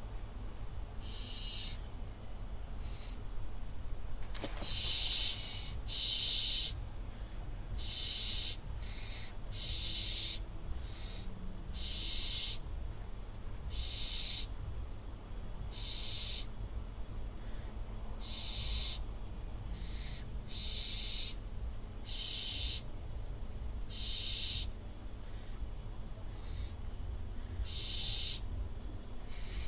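Barn owl chicks giving their hissing, snoring begging calls: a long run of rasping hisses, each under a second, repeating every one to two seconds. A single sharp knock sounds about four seconds in, over a steady low electrical hum.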